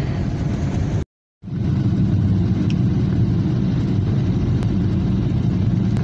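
Steady low rumble of a car on the move, heard from inside the cabin, broken by a brief gap of total silence about a second in.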